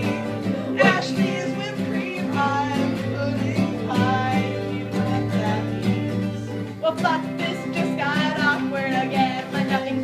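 A voice singing a country-style song with twang, over guitar.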